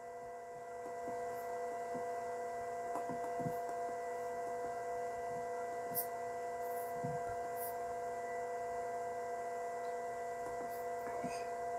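Steady electrical hum from powered industrial drive equipment, several steady tones held together, with a few faint clicks of membrane keypad buttons being pressed.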